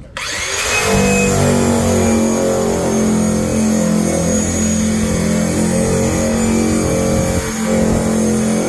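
KATSU 1250 W electric drum sander-burnisher switched on, its motor spinning up within about a second and then running at a steady pitch with a high whine. The pitch dips and shifts briefly near the end.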